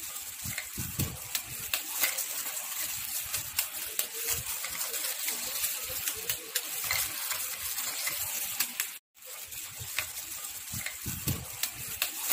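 Marie biscuits snapped and crunched by hand in a glass bowl: a run of crisp cracks over the rustle of plastic food-handling gloves, with a brief break about nine seconds in.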